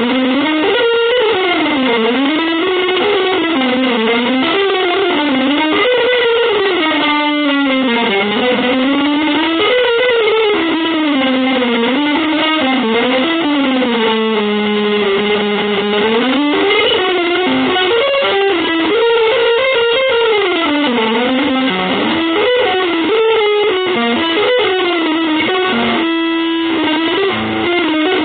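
Instrumental music: an electric guitar through effects and distortion, its melody sliding continuously up and down in wavy glides, with a couple of briefly held notes.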